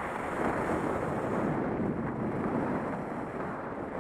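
Steady wind rushing over a head-mounted camera's microphone while skiing downhill at speed.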